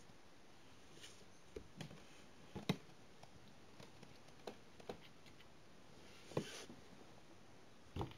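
Faint, scattered taps and clicks of a young kitten's paws and claws on a wooden floor as it toddles about, with a few sharper knocks and a brief rustle about six seconds in.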